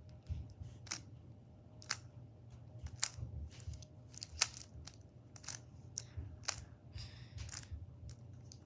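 A Rubik's Cube's plastic layers being turned by hand through a move sequence: a string of short, sharp clicks and clacks, one or two a second.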